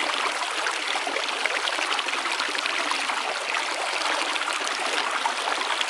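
Steady sound of running water, as of a flowing stream.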